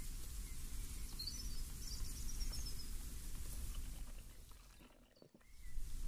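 Steady low rumble of a breeze, with a small bird chirping in a short high twittering run about a second in. Near the end the ambience fades almost to silence for a moment, then comes back.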